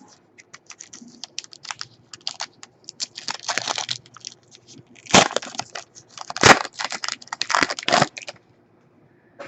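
Trading card packs and cards being handled: a run of sharp crinkles, crackles and clicks as foil pack wrappers are torn open and cards are flipped through. It is loudest about five and six and a half seconds in and stops about a second before the end.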